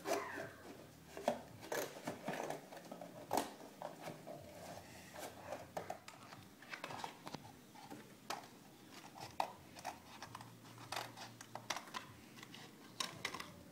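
Scissors cutting through a thin cardboard box: a string of short, sharp snips at irregular intervals.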